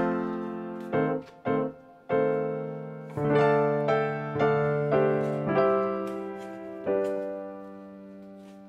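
Background music: a slow electric-piano tune of single struck notes and held chords, the last chord fading away near the end.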